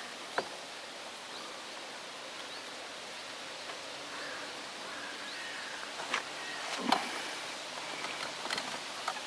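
Outdoor ambience: a steady rustling hiss with a few faint short chirps, and several clicks and knocks in the second half, the loudest about seven seconds in.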